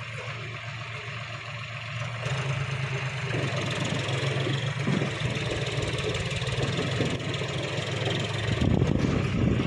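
John Deere tractor's diesel engine pulling a loaded trolley through mud. It works harder and gets louder from about two seconds in.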